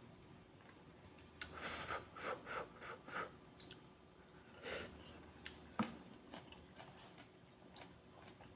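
A person eating Thai suki noodles close to the microphone. There is a quick run of wet chewing and mouth sounds from about a second and a half to three seconds in, another one shortly before the middle, and a single sharp tap just under six seconds in.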